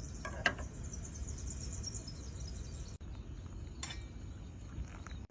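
Insects, likely crickets, chirping in a fast high pulsing trill over a steady low rumble, with a sharp click about half a second in and another near four seconds. The chirping stops abruptly at a cut about three seconds in.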